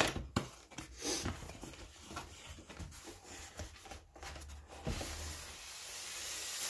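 A cardboard model-train box being opened by hand: scattered taps and clicks as the end flap is lifted, then a steady sliding rustle in the last second or two as the polystyrene tray is slid out of the cardboard sleeve.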